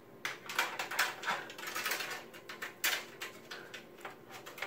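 Irregular light clicks and knocks of power-supply cables and their plastic connectors being fed through and against a computer case, with a sharper knock about three seconds in.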